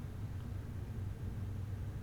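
Steady low hum, with one faint click about half a second in from a disc-detainer pick working the discs of an Abus Plus 88/40 padlock.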